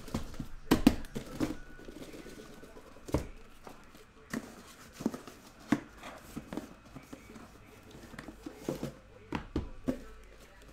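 A cardboard shipping case being handled and opened, and shrink-wrapped trading-card hobby boxes set down and stacked on a table. It is a string of separate knocks and taps with some cardboard rustling, the loudest about a second in.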